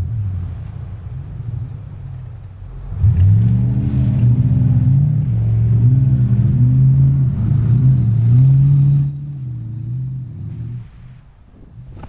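Pickup truck engine revving hard as it drives through deep soft sand, its pitch rising and falling with the throttle. The loud run starts about three seconds in and eases off after about nine seconds.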